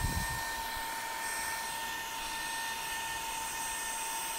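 Black+Decker 16V lithium cordless handheld vacuum running at a steady pitch, a high motor whine over airy suction hiss, as it draws dust out of the pleats of a battery fan filter.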